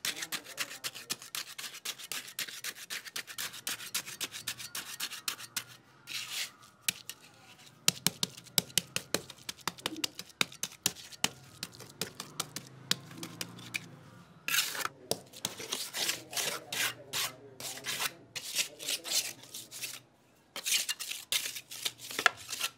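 Steel trowel scraping and tapping on wet cement mortar as it is worked into a steel hexagon mould and smoothed flat: runs of quick, sharp scrapes and clicks with a couple of short pauses.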